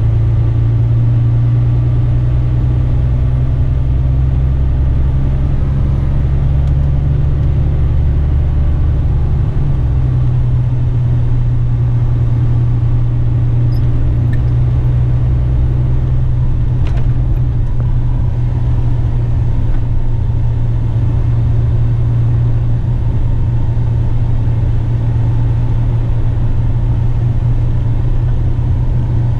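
Western Star truck's diesel engine droning steadily under way, heard from inside the cab, with a low hum whose deepest note drops away about ten seconds in.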